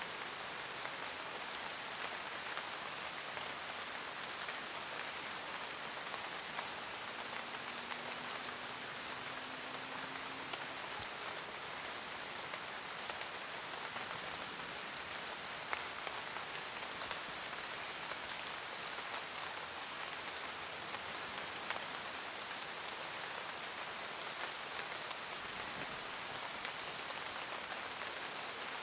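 Steady rain falling on forest foliage: a dense, even hiss with many individual drops ticking through it.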